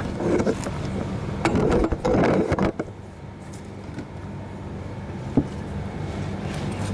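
Metal tool clicks and scrapes as a wrench is worked on the engine oil drain plug: a close cluster of clicks about two seconds in and one sharp click later, over a steady low hum.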